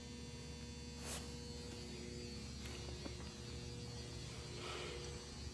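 Steady low electrical hum with a few faint steady tones in it, and a faint short knock about a second in.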